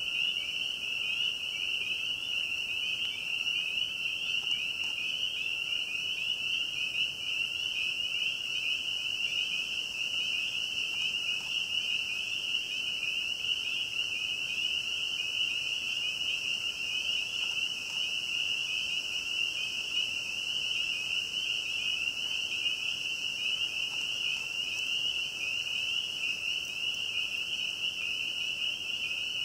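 Dense night chorus of frogs: a steady, high-pitched peeping trill of many overlapping calls.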